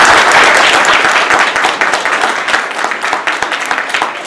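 Audience applauding, loudest at the start and gradually thinning out into scattered separate claps.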